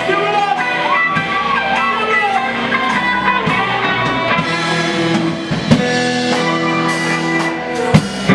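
Live punk rock band playing: electric guitars with sliding lead notes over bass and drum kit, with a couple of sharp drum hits later on.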